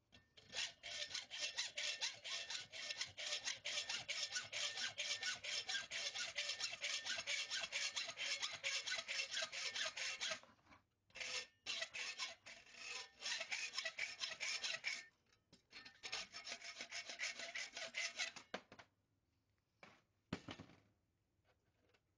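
Quick back-and-forth strokes of a hand tool rasping at a workpiece: a long run, then two shorter runs after brief pauses, and a few last strokes near the end.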